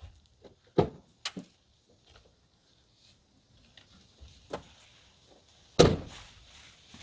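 2022 Ford Bronco's side-hinged rear tailgate being opened and shut. Its latch gives a clunk about a second in, followed by two quick clicks, and the door closes with a loud thud near the end.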